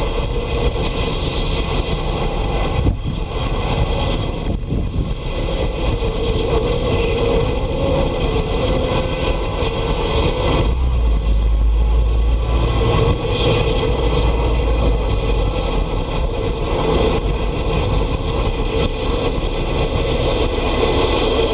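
CB radio receiver putting out steady static through its speaker, with a low rumble underneath that swells about ten seconds in.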